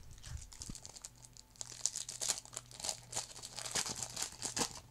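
Foil trading-card pack wrapper crinkling and being torn open, a dense run of crackles that is loudest from about a second and a half in until near the end.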